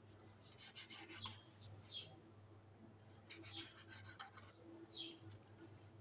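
Faint scratching of a kitchen knife sawing through bread crusts against a wooden cutting board, in two spells of quick strokes, about a second in and again past three seconds.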